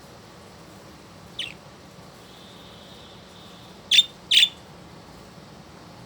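Pet budgerigars giving short, sharp chirps: one faint call about a second and a half in, then two loud calls in quick succession a little before the end.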